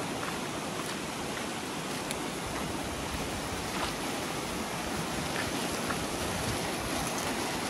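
Steady rush of a fast river pouring in white-water rapids past a low concrete causeway.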